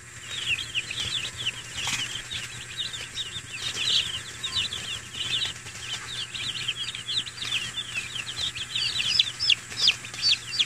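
A brood of newly arrived broiler chicks peeping continuously: many short, high, falling chirps overlapping, getting a little denser near the end.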